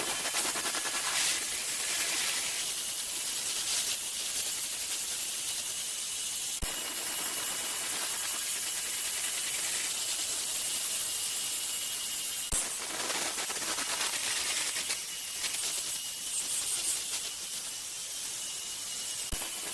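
Steady hissing rasp of hand abrasive work on the rusty axe, swelling and easing with the strokes, with a couple of sharp clicks.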